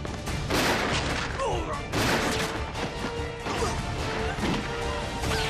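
Fight-scene sound effects over background music: three heavy hits and crashes about a second and a half apart, with short shouts in between.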